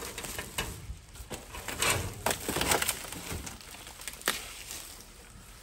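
Branches and undergrowth being pulled and dragged by hand, with irregular snaps and crackles of twigs and rustling leaves, loudest about two to three seconds in.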